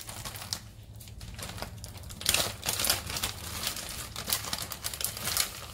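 Plastic food packaging crinkling and rustling in the hands as it is opened and handled, in irregular bursts that are loudest midway through and again near the end.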